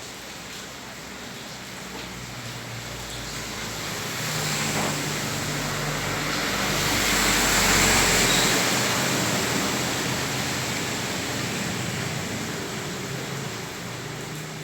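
A motor vehicle passes along a rain-soaked, flooded street. Its engine hum and the hiss of tyres through the water swell to a peak a little past halfway, then fade away, over steady rain.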